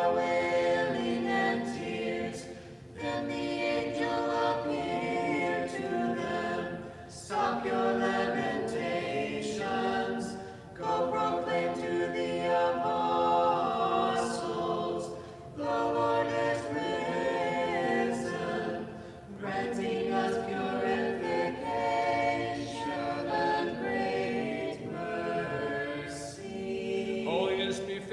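A cappella church choir singing an Orthodox vespers hymn, phrase by phrase with brief breaks between phrases.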